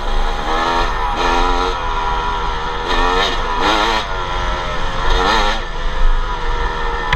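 250 cc two-stroke dirt bike engine being ridden on a trail, revving up and dropping off in several surges as the throttle is opened and closed.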